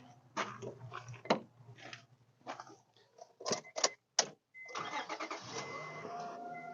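Scattered clicks and knocks, then about four and a half seconds in the 2002 Acura MDX's 3.5-litre V6 starts and settles into a steady run just after its oil change.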